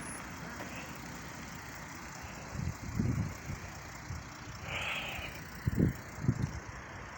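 Steady outdoor traffic noise from passing vehicles, with a few short low thumps about three seconds in and again near six seconds in.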